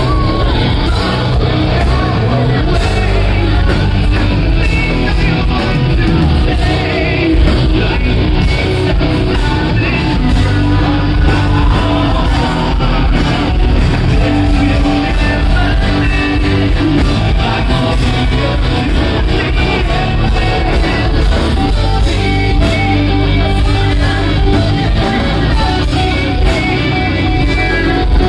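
Live rock band playing loud, with electric guitars, drums and singing, heard from among the crowd in a large hall.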